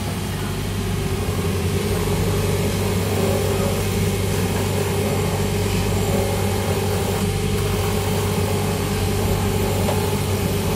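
Shoe-repair finishing machine running steadily on its motor, its breaster cutter trimming the breast of a shoe heel.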